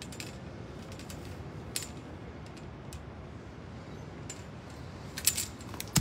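Light scattered clicks and clinks of a fruit-picker pole working among avocado branches, over a steady outdoor hiss, with a quick cluster of sharper clicks near the end as the fruit comes free.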